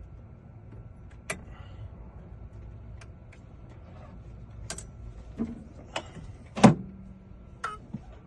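Scattered clicks and clacks of a key blank and a key-cutting machine being handled, about six in all, the loudest sharp clack about six and a half seconds in, over a faint steady hum.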